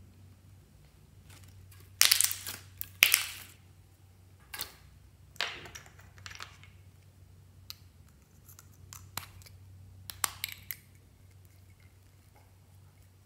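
Clear slime being stretched and squished by hand in a glass dish, in several short squelching, popping bursts, the loudest about two and three seconds in.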